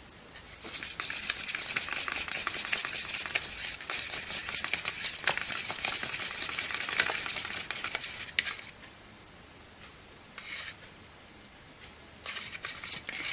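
Wooden lollipop stick stirring acrylic paint in a plastic yoghurt pot, a rapid run of scraping clicks against the pot for about eight seconds, mixing in added water to thin the paint. After a pause it scrapes again briefly twice, once about ten seconds in and once near the end.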